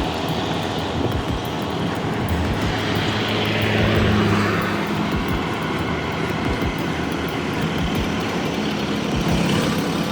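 A vehicle engine running steadily. About four seconds in it swells louder and its whine drops in pitch, as of a machine passing by.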